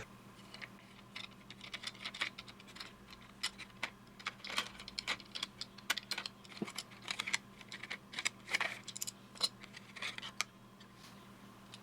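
Faint, irregular light clicks and taps, several a second, over a low steady hum.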